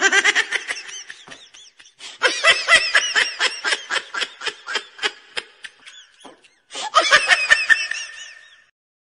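High-pitched laughter in three bouts of quick repeated bursts, with short breaks about two seconds in and near the end.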